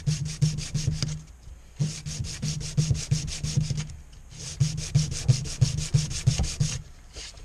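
Acrylic knife-handle scale rubbed rapidly back and forth by hand on a sheet of sandpaper, roughing up its flat side for gluing. Three runs of quick scraping strokes with short pauses between.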